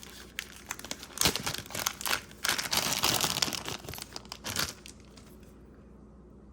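Packaging crinkling and rustling as it is handled, in a run of crackly rustles that stops a little over two-thirds of the way through.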